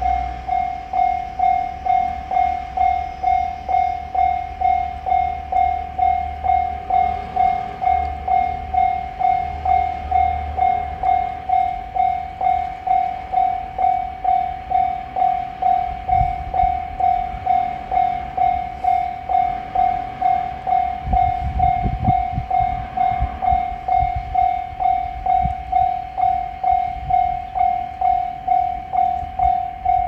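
Japanese railway level-crossing alarm ringing its repeated electronic 'kan-kan' bell at about one and a half strikes a second, warning of an approaching train with the barriers down. It starts abruptly, and a low rumble comes and goes underneath.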